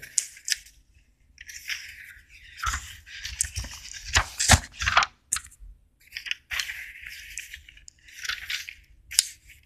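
Paper rustling and scraping in irregular bursts as notebook pages are turned and handled, with a few sharp clicks.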